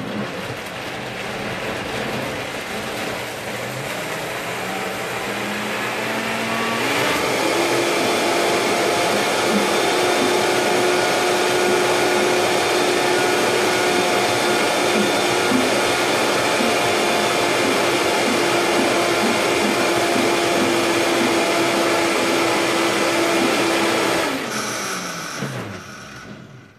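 Vitamix blender motor running on a thick avocado-and-cashew pudding mixture. The speed ramps up over the first several seconds and jumps to a higher, steady whine about seven seconds in. Near the end the blender is switched off and the motor spins down.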